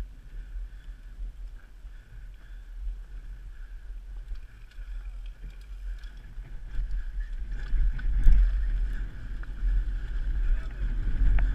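Wind buffeting an action camera's microphone, with the rumble and rattle of a mountain bike riding fast down a dirt trail. It grows louder and rougher about eight seconds in, with a few sharp knocks.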